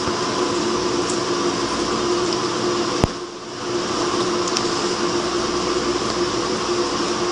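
Steady mechanical hum with a hiss over it, holding a constant pitch, broken by a single sharp click about three seconds in, after which it briefly drops in level.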